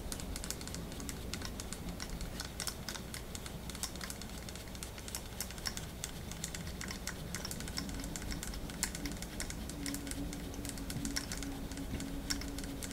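Rapid, irregular light clicking and ticking as the metal handwheel of a Proxxon KT70 X/Y table is turned by hand, unscrewing the lead screw out of its nut.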